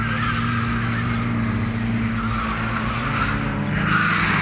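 Peugeot 207 rally car's engine running hard at a steady pitch through a tight turn, with tyres scrubbing and squealing on the asphalt, the squeal growing louder near the end.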